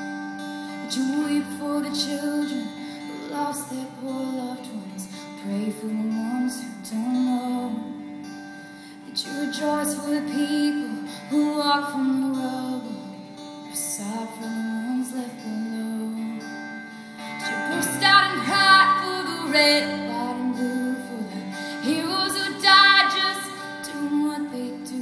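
A woman singing a slow ballad live into a microphone, with acoustic guitar accompaniment.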